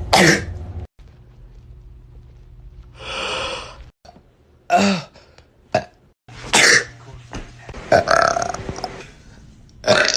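A series of loud burps from young men, about half a dozen separate belches one after another, with short quieter gaps between them.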